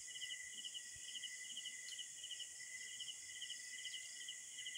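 Night insects, crickets among them, calling: short pulsed trills repeat over a steady high-pitched drone.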